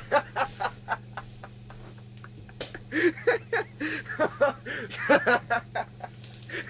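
A person laughing in short rapid bursts, two runs of them with a pause between, over a steady low electrical hum.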